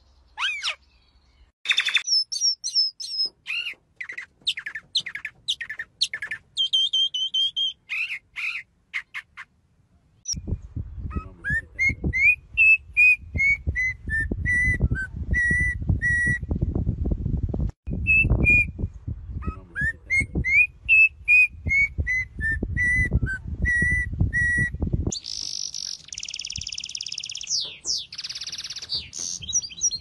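Pet birds singing. For the first ten seconds a common starling gives a varied medley of whistles, clicks and squeaky notes. Later, repeated phrases of whistled notes that rise and then fall run over a low rumble, and near the end comes a dense, high twittering.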